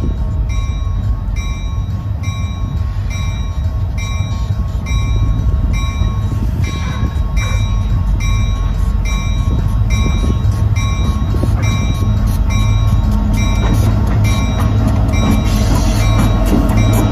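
Diesel locomotive sound from an HO-scale model train: a steady engine rumble with a bell ringing about twice a second. The engine gets louder over the last few seconds.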